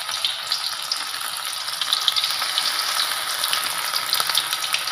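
Flour-battered fish deep-frying in hot oil: a steady sizzling hiss dotted with many small crackles.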